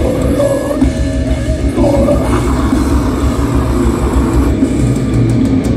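Live death metal band playing loud and dense, with distorted electric guitars, bass and drums, as heard from a phone in the audience. A run of sharp drum and cymbal hits comes near the end.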